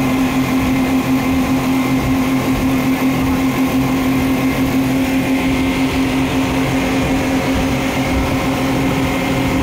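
Speed boat engines running at a steady cruising speed, one unchanging drone over a constant rush of wind and water.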